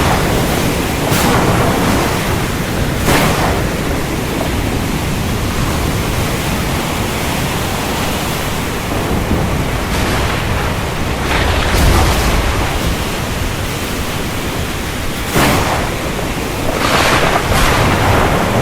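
Heavy rain falling in a steady hiss, broken by several sharp cracks of thunder and a deeper rumble of thunder about twelve seconds in.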